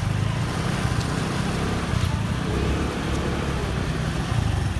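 Motor scooter engines running at low speed, a steady low rumble.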